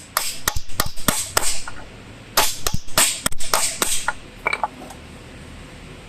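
Hammer blows on a Renault Logan's lower control arm, pressing a new ball joint into its seat. Two quick runs of sharp strikes, then a few lighter taps a little later.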